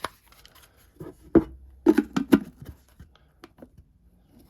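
Clicks and knocks of a re-keyed Givi lock being handled and fitted back together: one sharp click about a second and a half in, a quick run of knocks around two seconds, then a few faint ticks.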